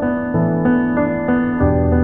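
Background instrumental music: a melody of sustained notes over held chords, a new note about three times a second, with a lower bass note coming in near the end.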